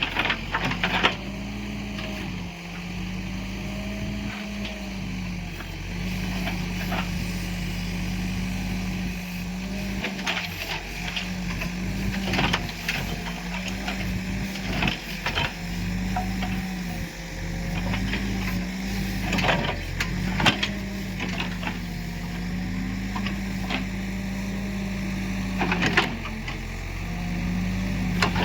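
Escorts Digmax backhoe loader's diesel engine running steadily, its note dipping briefly every couple of seconds as it works. Scattered sharp knocks and clanks sound over it.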